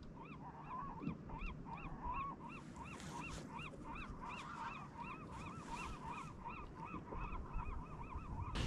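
A bird calling steadily in a rapid series of short notes, each rising and then falling in pitch, about three a second, over a soft hiss of wind and water.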